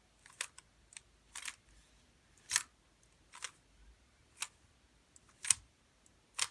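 Plastic Rubik's cube faces being turned one move at a time, each turn a short click. About eight separate clicks come at roughly one a second as the fish-case algorithm (R U R' U R U2 R') is worked through slowly.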